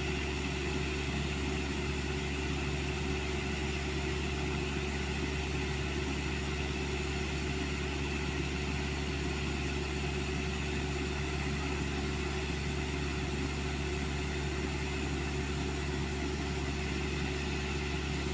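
Diesel engine running at a steady speed, an even low drone with no revving.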